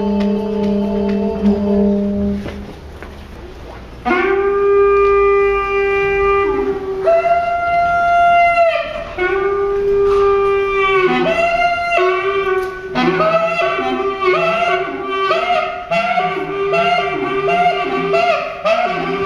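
Live music on a Xaphoon (pocket sax), a small reed wind instrument. A low held note dies away about two and a half seconds in. From about four seconds the Xaphoon plays long held notes, then a quicker phrase of shorter notes in the second half.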